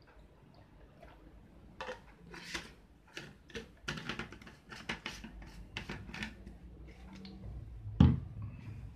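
A spoon stirring and scraping in a bowl of mashed banana and warm water, making irregular knocks, with one loud knock near the end.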